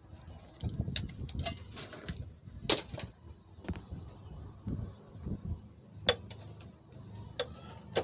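Scattered light clicks and knocks from circuit boards and cables being handled inside an open amplifier chassis, a few louder knocks among them, over a faint low rumble.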